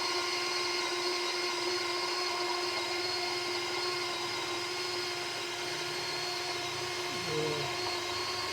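A small electric motor running steadily with a high, even whine.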